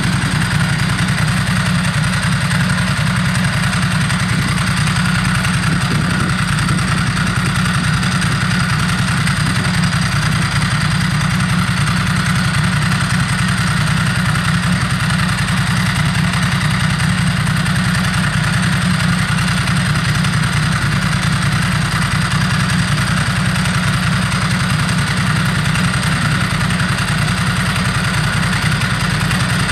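Motorcycle engine idling steadily close by.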